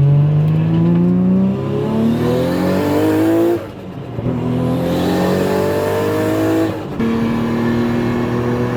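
Nissan Skyline R34 GT-R's RB26 twin-turbo straight-six under hard acceleration: the revs climb for about three and a half seconds, fall sharply on an upshift, climb again, and fall on a second upshift near seven seconds, then hold steady.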